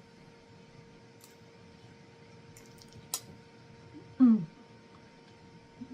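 Eating sounds: a few sharp clicks of a spoon against a plate, then about four seconds in a short falling "mmm" of someone tasting food, over a faint steady hum.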